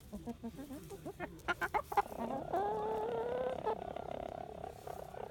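A rooster making an odd call that sounds like a broken printer: soft low clucks and a few sharp clicks, then about two and a half seconds in a long, drawn-out, steady-pitched call that fades out near the end.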